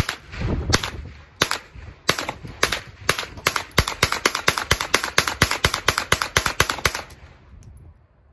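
Rifle firing about two dozen shots: a few spaced shots at first, then a fast even string of about four a second, stopping about seven seconds in.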